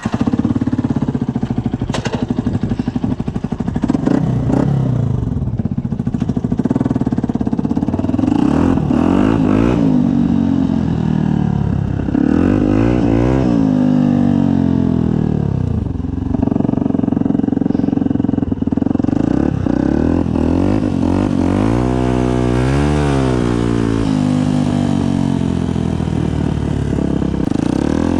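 Yamaha WR125's single-cylinder four-stroke engine through a Black Widow aftermarket exhaust, ridden with the revs climbing and dropping again and again. About 22 seconds in the engine is revved up and down several times in quick succession.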